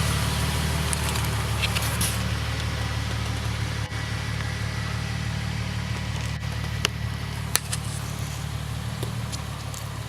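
Nissan 370Z's 3.7-litre V6 running steadily through a newly fitted AAM Competition 2.5-inch true dual catback exhaust, a low even hum, with a few faint clicks.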